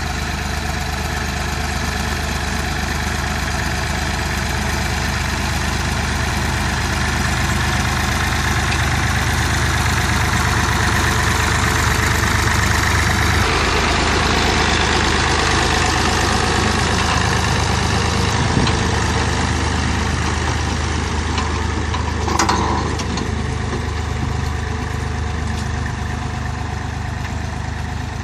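A tractor's engine running steadily while it drives a rear-mounted rotary tiller working the soil between crop rows. The engine note shifts slightly about halfway through, with a sharp knock about two thirds of the way in and a short louder clatter a few seconds later.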